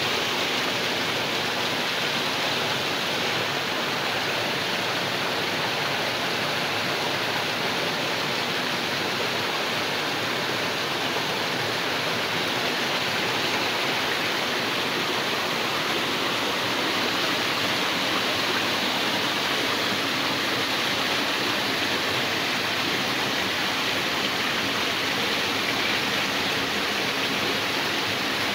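Shallow rocky stream rushing over stones and a small cascade: a steady, even sound of running water.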